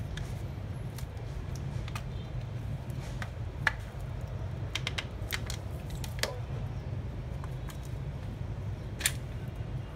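Scattered sharp clicks and taps of a cordless drill's plastic housing being handled and pried apart, the loudest a little under 4, at about 6 and at about 9 seconds in, over a steady low hum.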